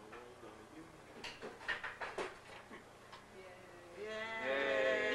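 Indistinct voices of people around a table, then a louder, drawn-out voice from about four seconds in.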